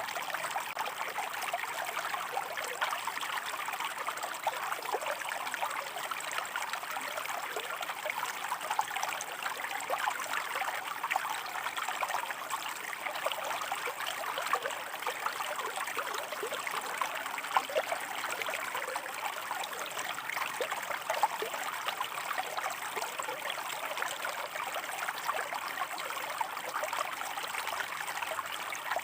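Running water flowing over rocks: a steady, even babble made of many small splashes and gurgles.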